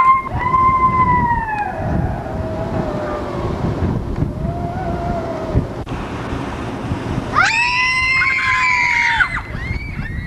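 High-pitched human screams: a long scream at the start that falls away in pitch, fainter wavering cries in the middle, and another loud scream about seven seconds in. Low wind rumble on the microphone runs underneath.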